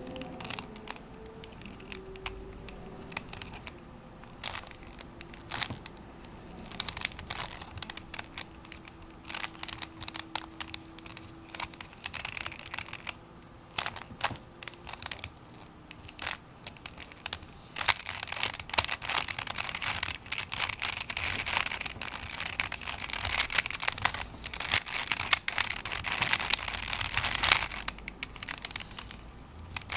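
Plastic Rubik's Cube being turned by hand: a run of clicks and rattles from the layers turning, sparse at first and getting much busier and nearly continuous about two-thirds of the way through.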